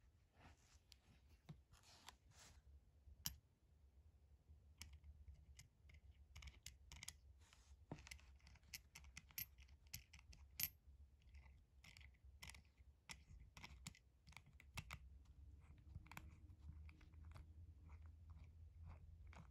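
Faint, irregular small metallic clicks and light scraping as fingers handle a watch's stainless steel bracelet links and case.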